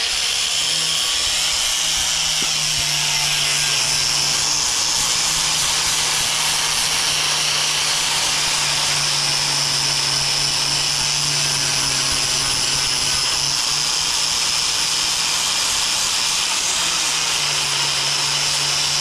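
Power grinder grinding out a crack in a fiberglass pool shell, running steadily to open the crack for a new fiberglass patch.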